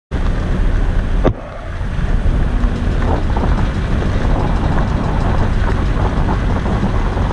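Wind buffeting the microphone over the rumble of a moving vehicle, filmed while passing through an oil palm plantation. The noise drops off sharply about a second in, then builds back up and stays steady.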